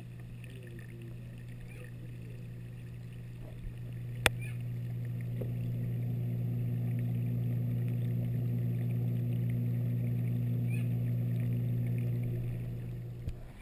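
Steady low electrical hum of reef aquarium equipment, such as a pump, that grows louder a few seconds in and fades away near the end. A single sharp click comes about four seconds in.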